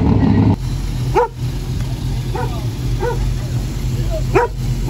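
A dog barking in short single barks, about five spread over the few seconds, over a steady low hum. Background music cuts off about half a second in, before the first bark.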